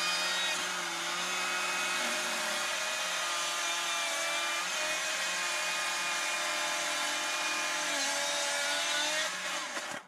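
Stihl battery-powered chainsaw running steadily at full speed as it cuts a piece of wood at an angle, with an even motor whine. It stops suddenly shortly before the end.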